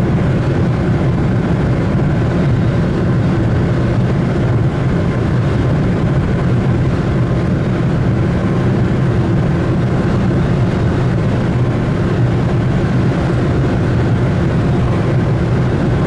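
A vehicle running steadily, heard from on board: a loud, even low rumble that does not change.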